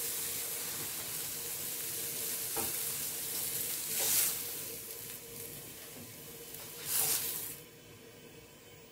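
Eggplant slices sizzling in a hot ridged grill pan, a steady hiss with two louder surges of sizzling about four and seven seconds in, dying down near the end as the pan empties.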